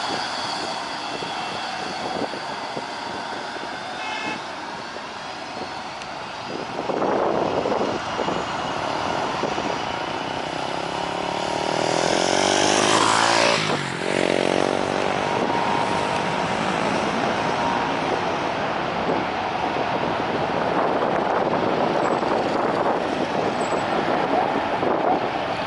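Steady roadside traffic noise, with one vehicle passing close by and loudest about 13 seconds in, its sound sweeping in pitch as it goes past.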